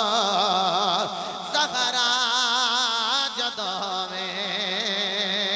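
A man's voice singing a Punjabi devotional manqabat (naat-style recitation) through a sound system, in long ornamented phrases with a wavering vibrato, over a steady droning tone.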